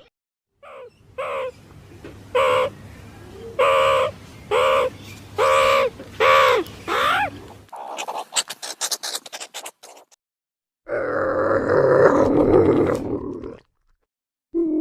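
A series of calls from different wild animals: about nine short calls that rise and fall in pitch, then a rapid run of clicks, then a harsher, noisier call after a pause.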